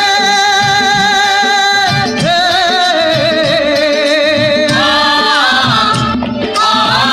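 Background music from a Kannada song: long, wavering held melody notes over a steady beat.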